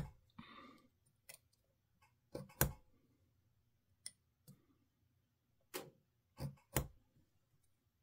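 Short, faint scrapes and ticks of a sharp pointed tool scoring the aluminium can of a Rubycon Black Gate capacitor held in a bench vise, coming a few at a time at irregular intervals.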